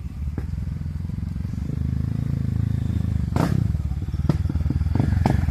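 Single-cylinder off-road motorcycle engine running under load, its steady firing pulses growing a little louder about two seconds in, with a few sharp clattering knocks in the second half.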